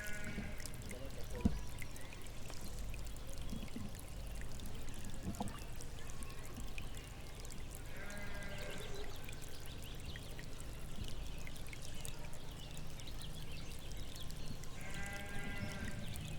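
Sheep bleating faintly in the distance, once about eight seconds in and again near the end, over a steady background rush of noise.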